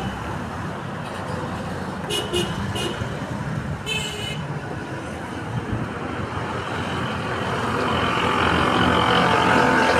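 Street traffic running steadily, with three short horn toots about two seconds in and a longer toot at about four seconds. The traffic noise grows louder over the last few seconds.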